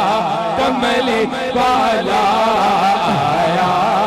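A naat sung as a long, wavering, ornamented melodic line over a steady low held drone.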